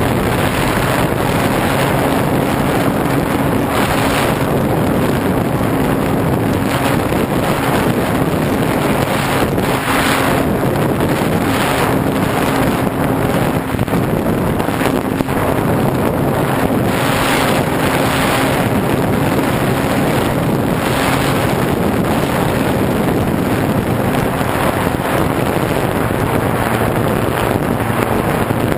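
Radio-controlled model airplane's motor and propeller running steadily at high power, heard from a camera mounted on the plane, with heavy wind rush on the bare microphone gusting now and then.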